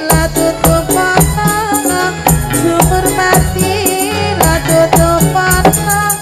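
Ndolalak dance music: an instrumental passage with drums keeping a steady beat, jingling percussion and a pitched melody line with trills over a strong bass.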